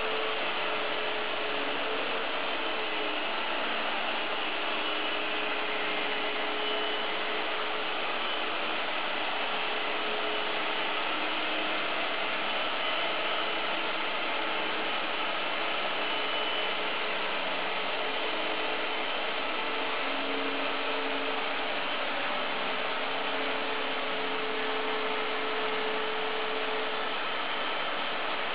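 Electric core drill on a wall-mounted stand running steadily as its bit cuts through the masonry wall, a continuous grinding noise with a hum that wavers slightly in pitch under load.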